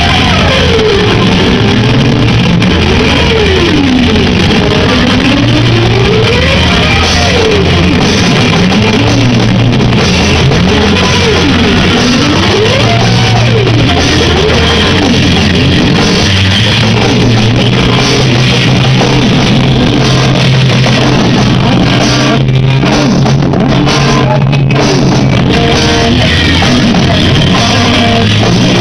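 Noise-rock band playing live and loud: distorted electric guitar and drum kit. A pitch slides up and down over and over through the noise.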